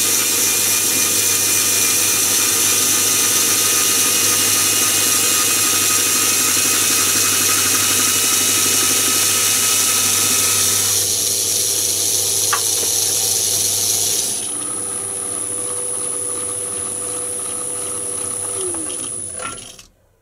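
Myford ML7 lathe running while cutting plastic, its cross slide fed by a cordless screwdriver used as a power feed. About fourteen seconds in, the high-pitched cutting noise drops away and the machine runs on more quietly. Near the end its motor winds down to a stop.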